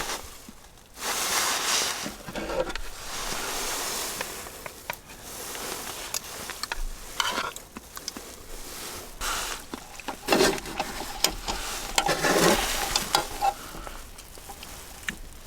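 Food sizzling in a pan while being stirred and scraped, with scattered light clicks.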